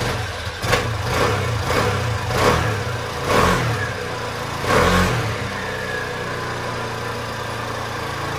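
A stripped-down scooter's engine running just after starting, revved in about four short throttle blips, then settling into a steady idle about halfway through.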